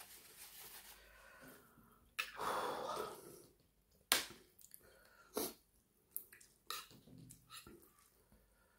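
A person blows his nose into a paper tissue: a loud rush of air lasting about a second, after some soft rustling. Then a metal spoon clinks and scrapes against ceramic plates several times.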